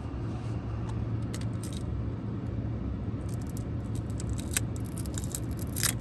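Light clicks and scrapes of a small screwdriver prying the trim cap off a Ram 1500's rotary shift knob, scattered at first and coming thicker in the second half. A steady low hum from the truck cab runs underneath.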